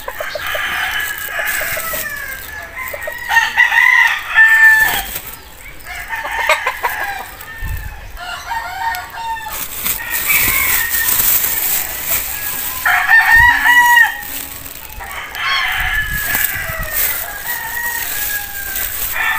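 Backyard chickens clucking and roosters crowing over and over, with the loudest crows about four and thirteen seconds in.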